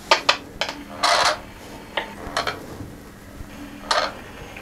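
Irregular sharp clicks and short bursts of static crackle over a steady low electrical hum, from homemade electromagnetic field amplifiers turning field activity into sound. The longest burst is about a second in, and another comes near the end.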